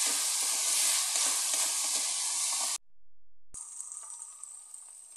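Minced beef with garlic and onion sizzling in a frying pan while a wooden spatula stirs and scrapes through it. The sound cuts off sharply a little under three seconds in, then comes back as a quieter, steady sizzle with no stirring.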